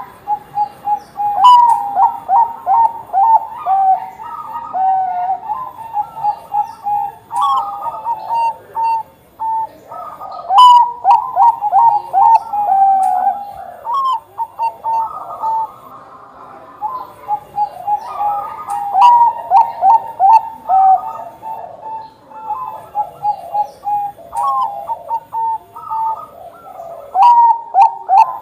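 Zebra doves of the Bangkok song strain (perkutut bangkok) cooing. They give repeated phrases of quick, bending coo notes, each phrase lasting a couple of seconds, with short pauses between.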